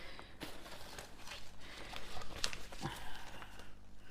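Paper and plastic packaging being handled, rustling and crinkling in short, irregular bursts with a few light taps.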